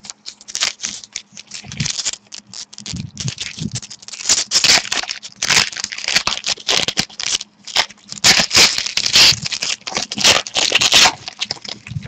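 Trading-card pack wrapper torn open and crinkled, with cards slid and shuffled against each other in the hand: a dense, uneven run of crackles and scrapes, busiest in the second half.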